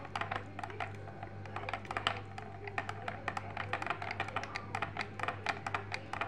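A metal spoon stirring instant yeast into hot water in a small glass tumbler, clinking quickly and unevenly against the glass.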